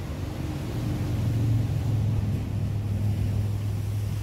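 An engine droning steadily in a low, even hum, which grows stronger about a second in.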